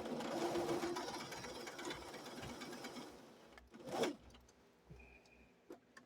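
Electric sewing machine stitching through a quilt: it runs for about three and a half seconds, growing gradually quieter until it stops, then gives one brief burst about four seconds in, followed by a few faint clicks.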